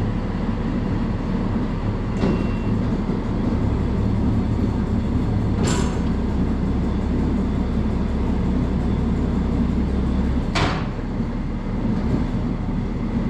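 John Deere 5425 four-cylinder diesel tractor engine idling steadily after a jump start, left running to charge its flat battery. Three sharp knocks sound over it, about two, six and ten and a half seconds in.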